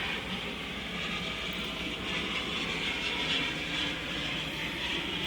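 2008 Chevrolet Suburban V8 idling steadily and evenly, with no shaking: the cylinder-4 misfire is cured after the spark plug was reseated and checked.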